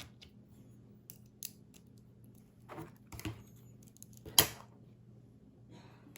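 Scattered small clicks and taps of small teardown tools and tiny screws being handled on a phone, with one sharper click about four seconds in, over a faint low hum.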